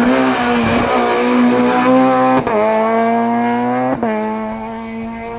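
Ford Fiesta rally car's engine held at high revs as it drives up a wet road, with a hiss of tyre spray. The engine note breaks sharply twice, then eases off near the end.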